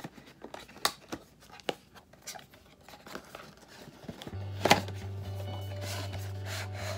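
Cardboard packaging being handled: a product box slid out of its sleeve and its flap opened, with scattered light taps and scrapes and one sharper click a little past halfway. From about four seconds in, background music with a sustained low note plays underneath.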